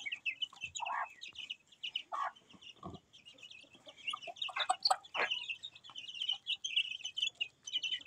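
Young chicks peeping in a constant stream of quick high chirps, with a hen clucking now and then.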